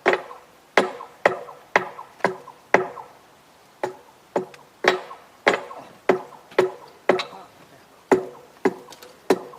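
A series of sharp knocks, about two a second with a couple of short pauses, each leaving a brief ringing tone.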